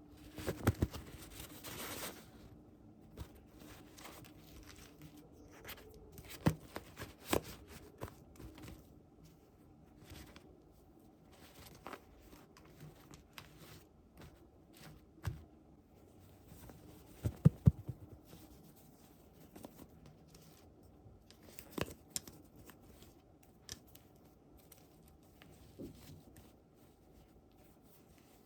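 Packaging being torn open for about the first two seconds, followed by scattered light clicks and taps of small plastic pieces and packaging being handled.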